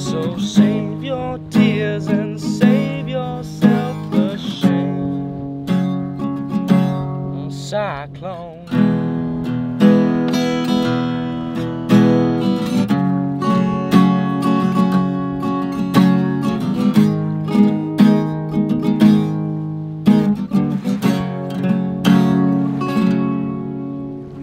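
Taylor acoustic guitar played with a steady picked-and-strummed pattern, notes and chords ringing on one after another.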